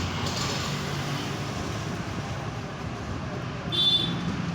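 Steady background road traffic noise, with one short high-pitched tone near the end.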